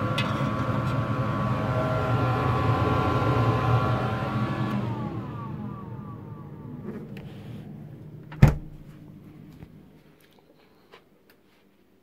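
Fridge-freezer's motor humming steadily, then winding down with a falling pitch about five seconds in and fading out. A single sharp knock comes about eight and a half seconds in.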